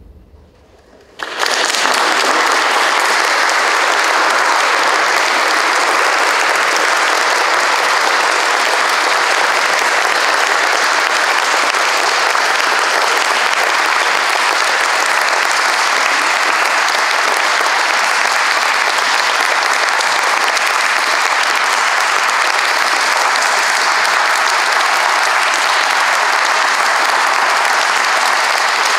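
Audience applauding. The clapping starts suddenly about a second in, as the last of the music dies away, and then runs on steadily.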